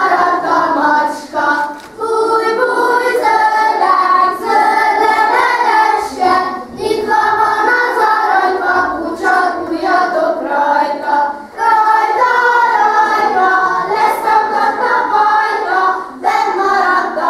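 A group of young children singing a Hungarian folk song of the kiszehajtás custom together, in a steady flow of sung verses.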